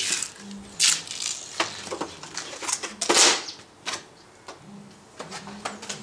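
Handling noise from a plastic-skinned RC delta wing with a carbon-fibre leading edge as it is turned over and lifted: irregular clicks, taps and short rustling scrapes, the loudest a little after three seconds in.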